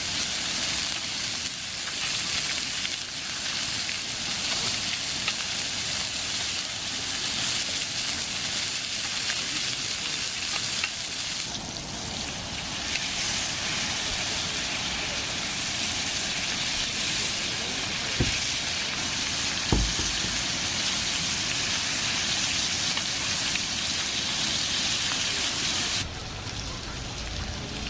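Food sizzling and frying in a hot pan, a steady crackling hiss, with two sharp clicks about two-thirds of the way through.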